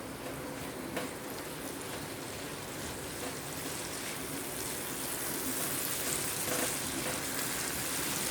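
Chopped tomatoes sautéing in coconut oil in a pan: a steady, soft sizzle that grows slightly louder, with a faint click about a second in.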